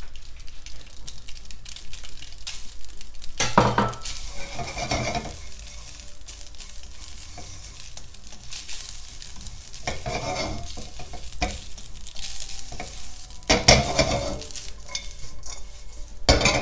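Spaghetti and fried bacon sizzling in a nonstick wok while being stirred with a spatula, with louder scrapes of the spatula against the pan now and then. The pasta is tossed in the wok near the end.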